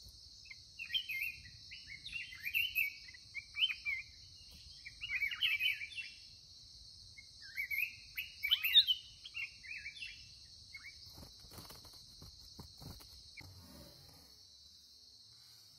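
Black-crested bulbuls singing short, repeated warbled phrases over a steady high insect drone. The song stops about ten seconds in, followed by a few soft rustles.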